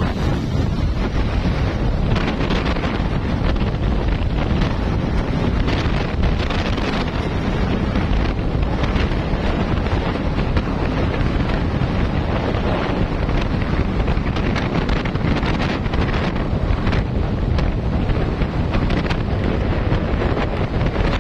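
Wind blasting across the microphone while riding at road speed: a steady, dense rush with constant flutter.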